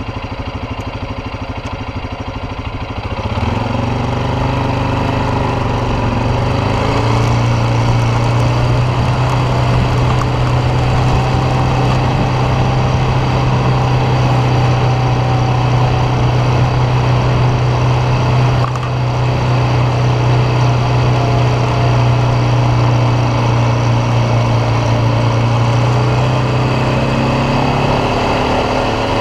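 ATV engine running low for the first three seconds, then revving up and running steadily under way, with a brief drop in level about two-thirds through and the pitch shifting again near the end.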